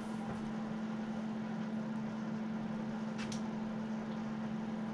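A steady machine hum, like a fan, fills the workshop, with one short hiss of an aerosol spray-paint can about three seconds in.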